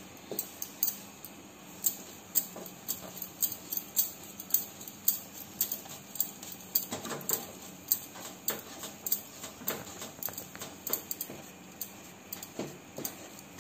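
Wooden spatula scraping and knocking against a nonstick kadai while a thick milk-powder burfi mixture is stirred and pressed, about two sharp clicks a second.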